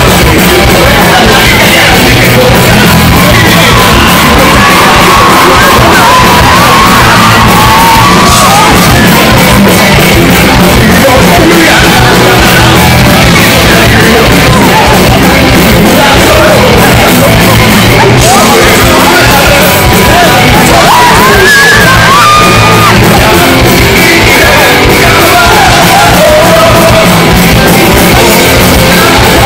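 Rock band playing live in a large hall, recorded very loud from within the crowd, with voices singing and yelling over the band.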